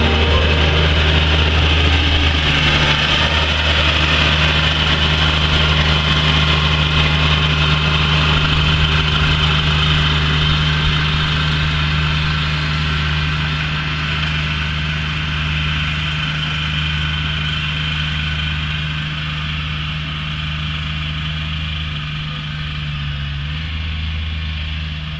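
Toro ride-on five-gang cylinder mower running, its engine a steady, unbroken note that slowly grows a little quieter.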